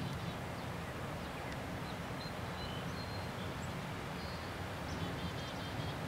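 Steady outdoor rumble and hiss, with faint, high, short bird chirps scattered throughout and a quick run of high repeated chip notes about five seconds in.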